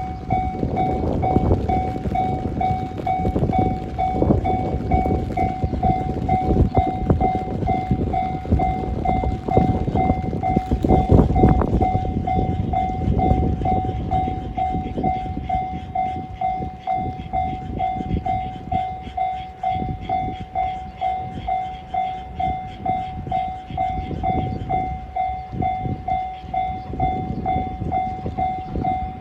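Japanese level-crossing warning bell ringing in rapid, even strokes throughout. Under it a diesel train passes over the crossing with a heavy low rumble, loudest about eleven seconds in, dying away about halfway through.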